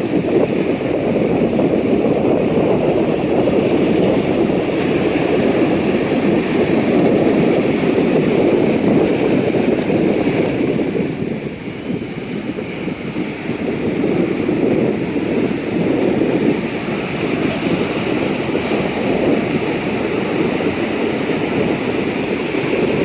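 Sea waves breaking and washing on a beach in a steady rush of surf, with wind buffeting the microphone. The surf eases for a couple of seconds about halfway through, then builds again.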